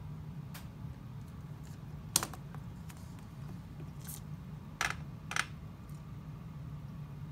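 A few sharp taps and clicks from a screwdriver handle knocking on an altimeter's case during its friction test, where the instrument is tapped to free its mechanism. The loudest tap comes about two seconds in and a quick pair follows around five seconds, over a steady low hum.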